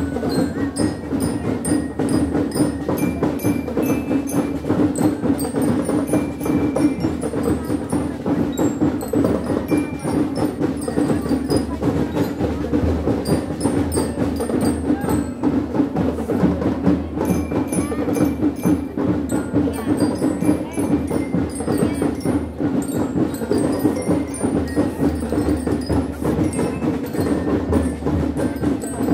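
School drum and lyre corps playing: rapid, steady snare and bass drum beats with bell lyres ringing out the melody above them.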